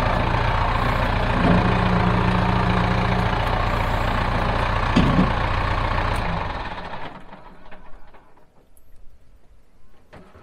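Kubota tractor's diesel engine running while the front-end loader is worked, with a steady hydraulic tone for a couple of seconds and a short knock about five seconds in. The engine is shut off a little after six seconds. The loader is lifting and lowering again now that the loose grub screw on the joystick control shaft has been tightened.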